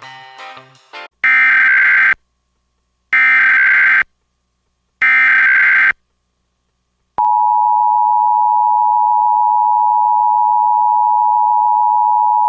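Emergency Alert System tones: three identical buzzy data bursts, the SAME digital header, each about a second long with a second of silence between, here encoding a Severe Thunderstorm Warning. About seven seconds in, the steady two-tone EAS attention signal (853 and 960 Hz) begins. The end of a music clip is heard just before the first burst.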